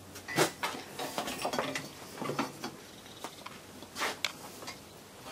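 Scattered light knocks, clinks and rubbing as a rubber V-belt is handled and threaded around a small engine's pulley under a welded steel frame, loudest about half a second in and again around four seconds.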